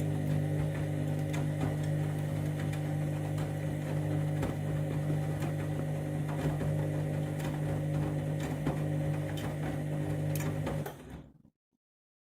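Candy washing machine running its main wash: a steady motor hum with scattered clicks and knocks from the tumbling drum. It cuts off abruptly about eleven seconds in.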